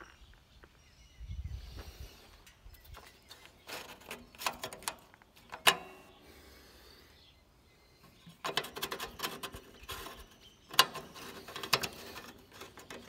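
Irregular clicks and rustling handling noise, coming in two bunches: one about four to six seconds in, and a busier one from about eight and a half seconds to near the end.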